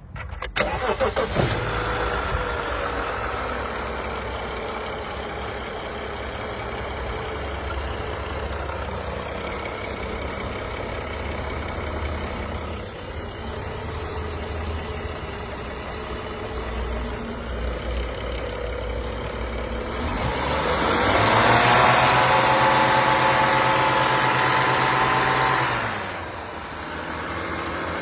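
BMW N55 turbocharged straight-six engine cranking and catching, then idling. About two-thirds of the way through it is revved up and held for about five seconds before dropping back to idle. The owner is asking whether its noise is timing chain rattle.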